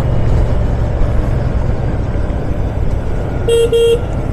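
Royal Enfield Shotgun 650's parallel-twin engine running under way, with road and wind noise. About three and a half seconds in, a vehicle horn gives two short toots in quick succession.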